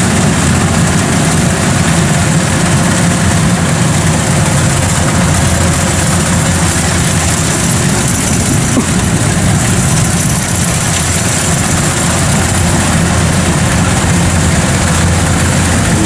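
Kubota rice combine harvester running steadily while cutting rice: a loud, even diesel engine hum mixed with the clatter and whirr of the cutting and threshing machinery.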